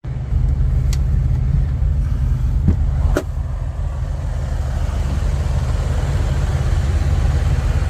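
Steady low rumble of a truck under way, engine and road noise, with three brief clicks in the first few seconds.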